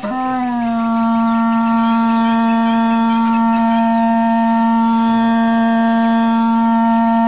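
Hmong raj nplaim, a bamboo free-reed pipe, holding one long, steady note after a short slide down in pitch at the start.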